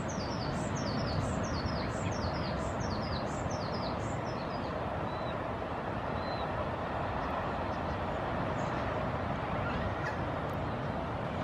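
A bird's high, rapid series of short downward-sliding notes, stopping about four seconds in, followed by two brief whistles, over a steady rushing background noise.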